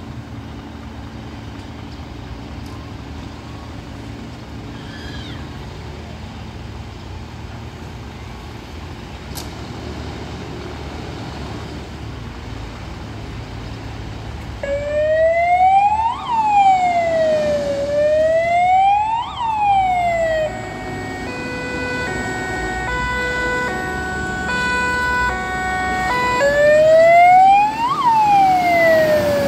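Scania heavy fire tender's electronic siren, starting about halfway in after a low steady rumble. It gives a slow rising-and-falling wail, then switches to a fast alternating two-tone pattern, then goes back to the wail near the end. This is the siren of a fire engine setting out on an emergency run.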